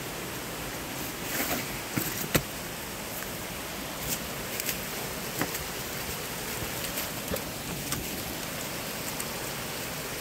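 Steady rush of whitewater from the Niagara River's Whirlpool Rapids, with scattered sharp clicks and taps; the loudest come about two seconds in.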